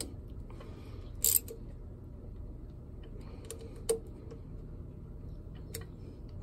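Hand wrench clicking and clinking against the bolts of a seawater pump pulley as they are tightened: a few separate sharp metallic clicks, the loudest about a second in, over a faint steady low hum.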